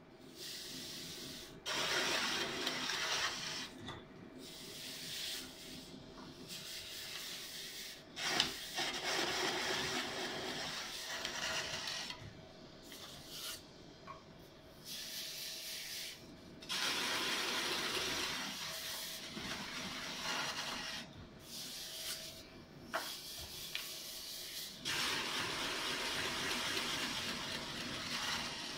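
Paper core cutter slicing a spinning cardboard tube: a knife blade scrapes into the rotating core in several rasping cuts of a few seconds each, over the steady hum of the mandrel's drive motor.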